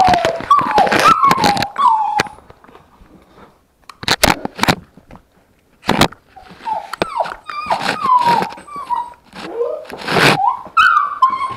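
Puppies whimpering and yipping in short, falling cries, heard very close, mixed with sharp knocks and scrapes against the camera as they chew and paw at it. There is a quieter stretch in the middle with a few knocks, then the cries pick up again.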